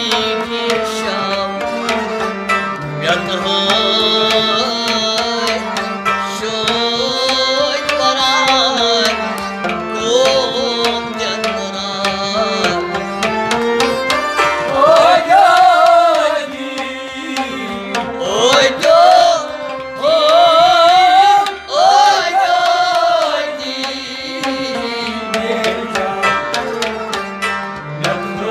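Kashmiri Sufiyana music: harmonium and bowed sarangi carrying the melody with a plucked rabab, over steady hand-drum strokes. In the middle stretch a man's voice sings a wavering, ornamented line over the instruments.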